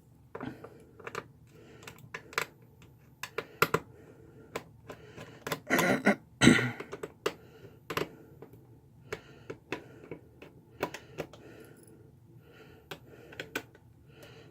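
Irregular light clicks and taps of a screwdriver and hands working on a Chromebook's plastic bottom case, loosening its panel screws, with a louder scraping rustle about six seconds in.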